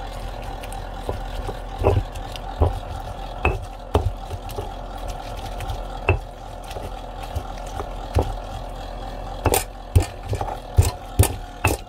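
Stone pestle grinding and tapping roasted serrano chiles, onion and garlic in a volcanic-stone molcajete: irregular knocks of stone on stone, coming quicker near the end, over a steady low hum.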